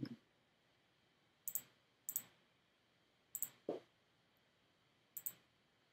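Faint, scattered clicks from working a computer, about six or seven of them spaced roughly a second apart.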